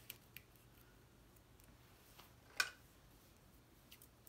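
Quiet handling of paper-crafting materials on a table: a few faint clicks and one sharper tap about two and a half seconds in.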